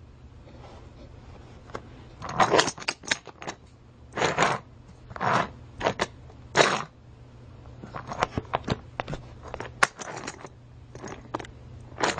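Irregular short rustling, scraping and clicking noises of small objects being handled, about a dozen bursts with gaps between them, over a faint steady hum.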